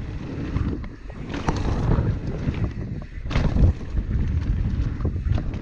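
Wind buffeting the microphone while a Ragley Blue Pig hardtail mountain bike is ridden over rough dirt trail, with a low rumble and scattered knocks and rattles from the bike, the loudest about three and a half seconds in.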